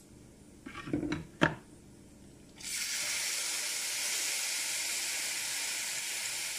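Partly frozen homemade tomato purée, squeezed from a plastic bag into a hot skillet of oil-toasted pasta, starts sizzling suddenly about two and a half seconds in and keeps up a steady hiss. Before it, a few brief handling noises and a sharp knock.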